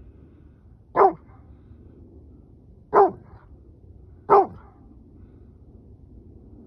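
Rhodesian Ridgeback giving three single loud barks a second or two apart, answering a coyote pack in the brush.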